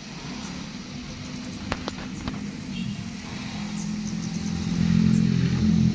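A motor vehicle's engine running nearby and growing steadily louder as it draws closer. A few sharp clicks come about two seconds in.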